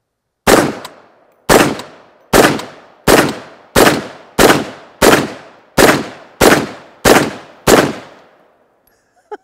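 Eleven shots in steady semi-automatic fire from a CMMG Anvil rifle in .458 SOCOM, about one every 0.7 seconds. Each loud crack trails off over about half a second.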